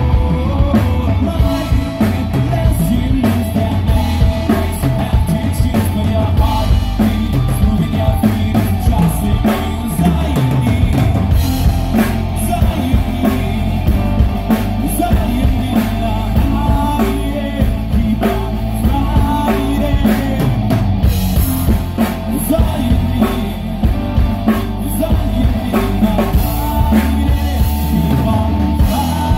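Rock band playing live: drum kit and electric guitars, with a man singing over them.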